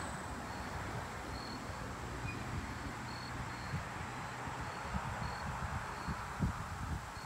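Outdoor ambience: low wind rumble on the microphone with a few soft thumps, and faint short cricket chirps repeating irregularly about once or twice a second.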